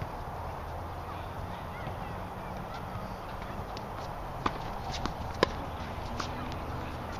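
Tennis balls struck by rackets and bouncing on a hard court: a few sharp pops starting about four and a half seconds in, the loudest about a second later, over a steady low background noise.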